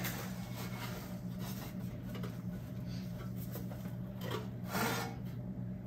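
Sheet-metal rear fender patch panel being handled and test-fitted against the car body: light scraping and rubbing of metal on metal, with a few sharper scrapes near the end, over a steady low hum.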